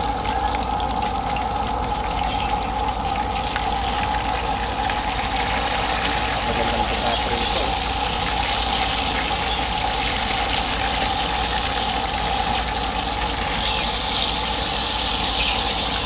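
Whole tilapia frying in hot oil in a pan: a steady sizzle that grows a little louder toward the end, with a metal spatula moving the fish.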